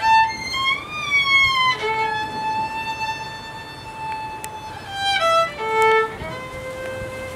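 Slow violin melody with long held notes and short slides in pitch between them.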